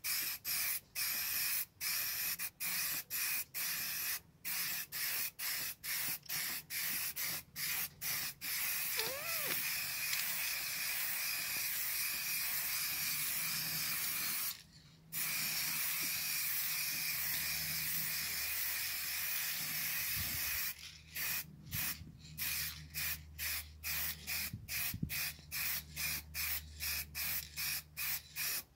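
Aerosol spray paint can hissing as paint is sprayed on in sweeping passes: a string of short bursts, then a long unbroken spray through the middle with one brief pause, then quick short bursts again toward the end.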